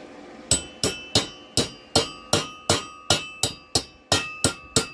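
Hammer blows on steel, about three a second, each with a short metallic ring: peening welded pins over to rivet eyebrow pieces onto a steel head.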